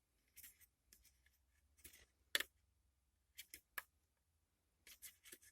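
Faint, scattered light clicks and taps, about a dozen, from the plastic pieces of a DIY jelly-ball candy kit being handled. The sharpest tap comes about halfway through.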